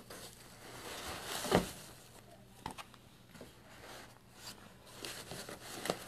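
Soft handling noise of paperback comic books and their packaging being moved on a desk: light rustling and scattered clicks, with one louder knock about a second and a half in.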